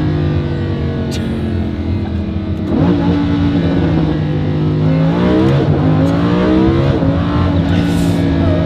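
Lamborghini Huracán's V10 engine pulling under throttle, the revs dropping and climbing again through gear changes, with a few sharp exhaust crackles.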